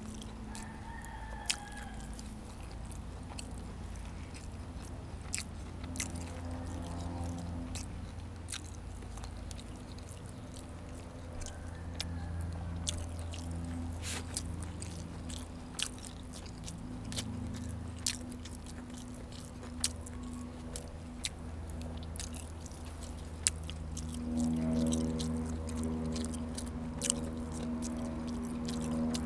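Close-up chewing and biting on pork ribs and raw vegetables: many sharp wet mouth clicks and crunches over a steady low hum. A rooster crows faintly in the background, and a low droning sound swells near the end.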